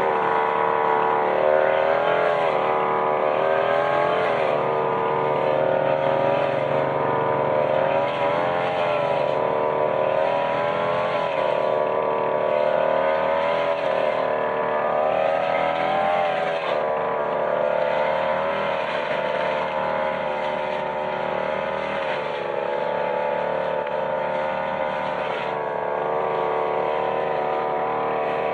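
Backpack brush cutter's small petrol engine running under load while cutting grass. Its pitch rises and falls every second or two through the first half, then runs steadier.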